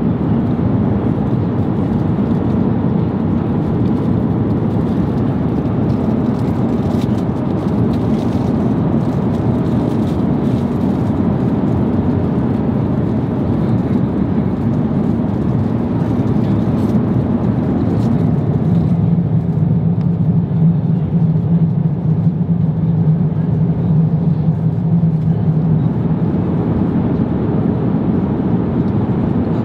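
Steady, loud cabin noise of an Airbus A350-900ULR in cruise: the constant rush of airflow and engines. A few light clicks sound early on, and a low steady hum joins for several seconds past the middle.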